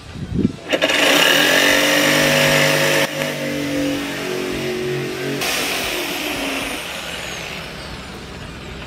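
Corded jigsaw cutting a sheet of FR4 epoxy-fibreglass board: a motor whine with a buzzing blade that starts about a second in, is loudest for the first couple of seconds, then drops a little and tails off near the end.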